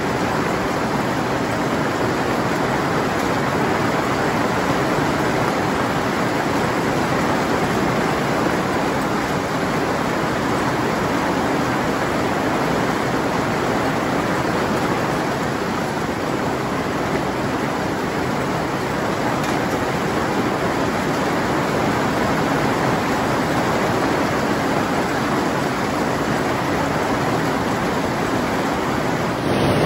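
Heavy hailstorm: a dense, steady hiss of hailstones about the size of marbles falling thick and fast together with rain.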